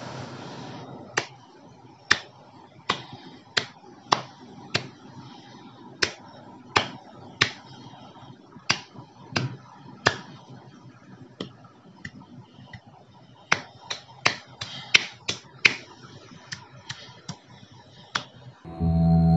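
Bare hands clapping: single sharp claps, about one a second at first, speeding up to about three a second over the last few seconds. Music comes in just before the end.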